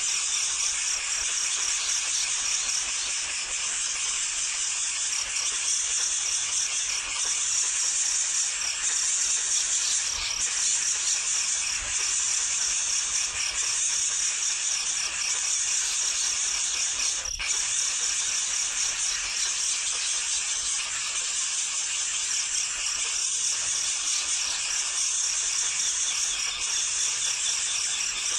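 Nestling birds calling noisily without pause, a dense high-pitched chirping that holds steady throughout, with a single click about seventeen seconds in.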